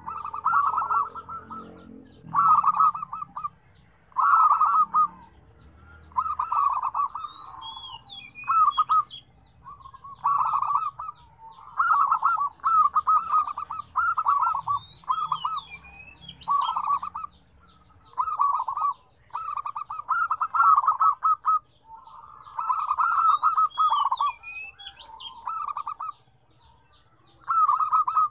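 Several zebra doves (perkutut) cooing, one rolling, trilled phrase after another, each about a second long, every second or two. Higher-pitched chirps are mixed in.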